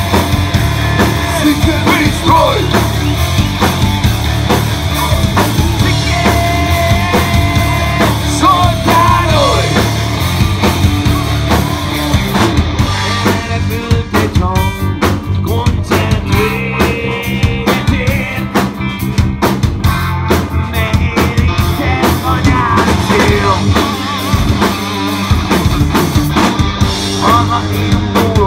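Rock band playing live and loud: drum kit, bass guitar and electric guitars, with a melody line that bends in pitch over the band.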